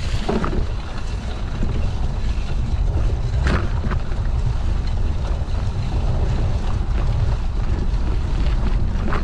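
Wind buffeting the microphone: a loud, steady low rumble, broken by a few brief knocks.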